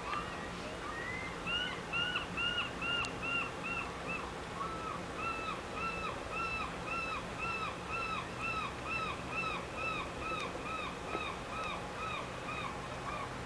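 A bird calling over and over in a long, even series of short arched notes, about three a second, with a brief break about four seconds in.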